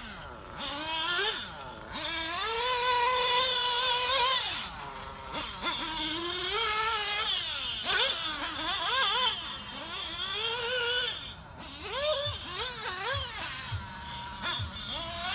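1/8-scale nitro buggy engine revving up and down as the car laps a dirt track, its pitch climbing and falling with each burst of throttle. There are a few short knocks near the end.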